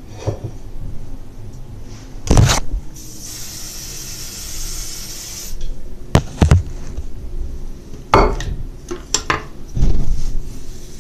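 Hard objects knocking and clattering as they are picked up and set down on a hard surface, about five sharp knocks in all. A steady hiss runs for about two and a half seconds, starting about three seconds in.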